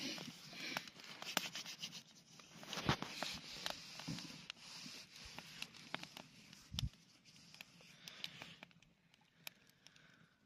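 Wood campfire crackling: scattered, irregular sharp pops over a faint rustling hiss, with a dull thump about three seconds in and another about seven seconds in.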